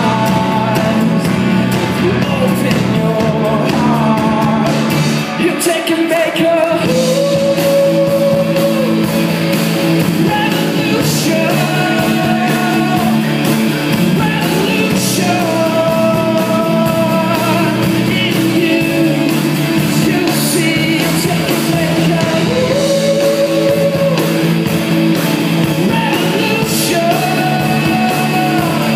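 Live rock band playing a song: acoustic and electric guitars and bass under a lead singer's voice.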